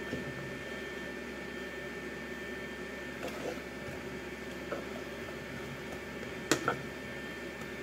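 Sliced onions frying in a nonstick pan with a soft, steady sizzle, stirred with a wooden spatula that knocks lightly against the pan a few times, twice more sharply near the end. A faint steady high tone runs underneath.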